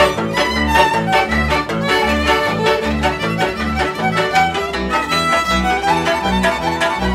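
Instrumental band music: a violin melody over a hammered dulcimer struck in quick notes, with accordion and double bass keeping a steady beat.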